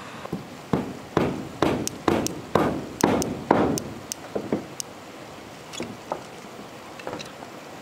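A run of about nine sharp blows, roughly two a second, each with a short ringing tail, stopping about three and a half seconds in; a few lighter, scattered knocks follow.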